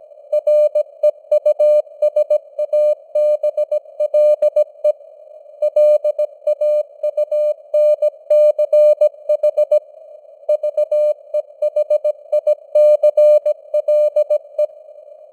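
Morse code (CW) sent at 17 words per minute as a keyed beep tone, dots and dashes in quick succession, over a steady hiss of simulated radio noise. There are a couple of longer gaps between words, where only the noise is heard.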